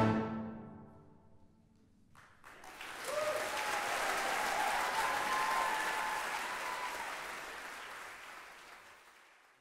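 A full symphony orchestra's final chord rings and dies away over the first second and a half, then after a short hush the audience breaks into applause, with a voice cheering over it. The applause fades out near the end.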